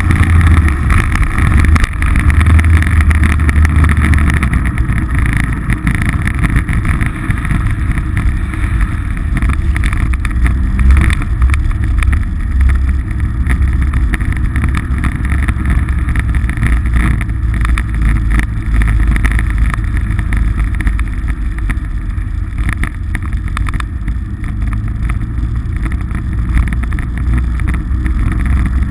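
Polaris RZR side-by-side's engine running steadily as it drives along a dirt track, a loud, continuous low drone.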